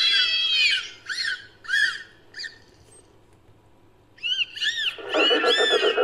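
Dolphin whistles and chirps reworked into a creature sound effect: a run of arching whistles, then a few short chirps. After a pause of about a second and a half, the whistling resumes, and a dense, buzzy chatter joins in near the end.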